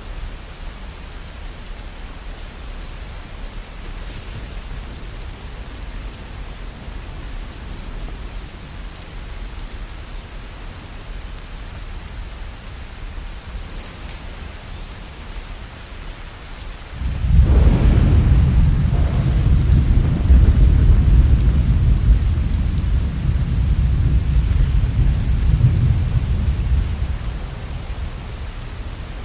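Steady heavy rain. About two-thirds of the way through, thunder breaks suddenly and rolls as a deep rumble for about ten seconds before fading back under the rain.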